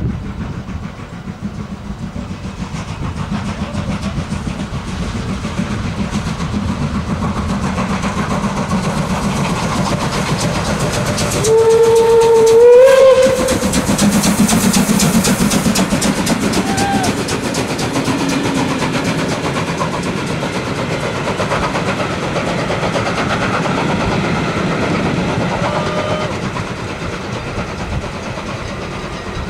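DB class 23 steam locomotive approaching and passing close by, getting steadily louder. About twelve seconds in it gives one steam whistle blast lasting about a second and a half, rising slightly in pitch at the end, just before the loudest moment as the engine goes past. Its passenger coaches then roll by.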